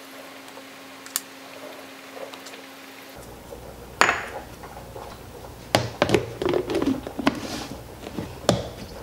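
Kitchen handling sounds: a sharp knock about four seconds in, then a run of knocks and clatters as a plastic food-storage container's lid is fitted and pressed down on the container on a countertop. The first few seconds are quiet apart from a faint steady hum and a single click.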